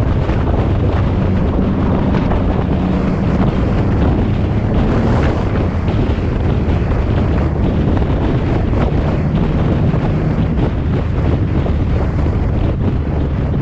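Twin-turbo Nissan 350Z's V6 engine running steadily during a drive, a low hum with wind buffeting the microphone.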